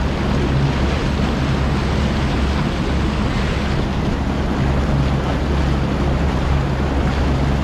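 Bass boat's outboard motor running at a steady cruising speed, a continuous low hum, with wind rushing over the microphone and water hissing past the hull.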